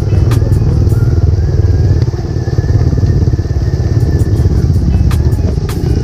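Motorcycle engine running steadily while riding, with a few sharp clicks.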